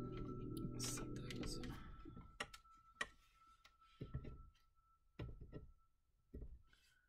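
Soft background music that fades out over the first two seconds, one held note lingering and dying away, then two sharp clicks and three brief soft knocks and rustles of paper being handled on a cutting mat.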